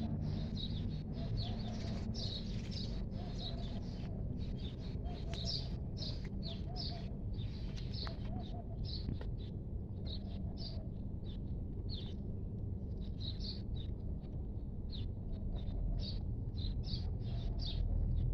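Small birds chirping over and over, several short high calls a second, over a steady low background rumble.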